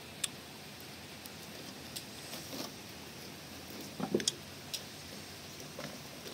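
Faint steady background hiss with a few light clicks and taps from handling food and dishes, with a short cluster of taps about four seconds in.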